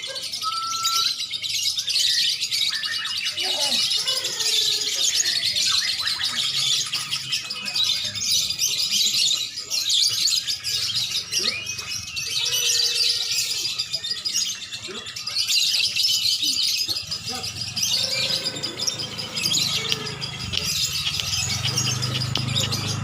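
Many caged songbirds, lovebirds and Oriental magpie-robins, singing and chattering at once in a dense, unbroken chorus of fast high chirps and trills, with occasional lower whistled notes rising and falling.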